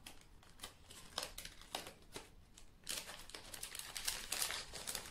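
Soft rustling and crinkling of plastic packaging as hands open a padded mailer and draw out a wrapped item, with scattered light clicks.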